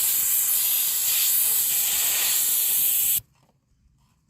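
Compressed air hissing steadily as it blows caked cedar sawdust out of a sawmill air filter (breather). The air cuts off suddenly about three seconds in.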